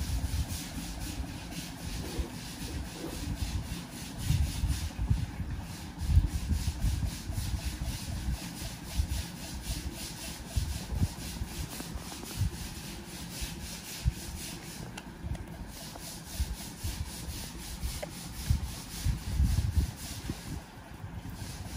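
Irregular rubbing and dull low bumps, like handling noise against a wooden table, over a faint steady hiss.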